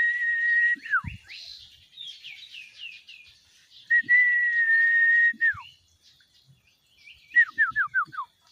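Sirtu bird singing clear whistled notes: a long held whistle that drops into a falling slur, a run of quick descending notes, a second long held whistle ending in a downward slur, then five short falling notes in quick succession near the end.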